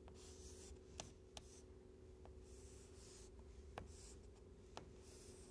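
Chalk writing on a chalkboard: faint scratchy strokes, with several sharp taps as the chalk strikes the board.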